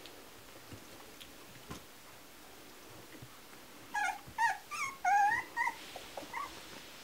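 Three-week-old Kromfohrländer puppies squeaking and yipping while they wrestle: a quick run of about six short, high-pitched cries starting about four seconds in, with a couple of fainter ones after.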